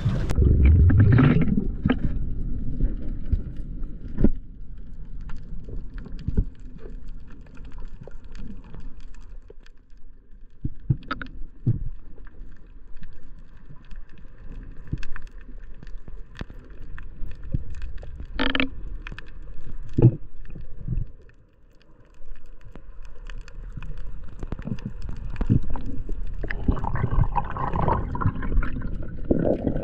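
Muffled underwater sound picked up by a diving camera: a low rumble of moving water with scattered sharp clicks and knocks, rising to a louder rush of water near the end.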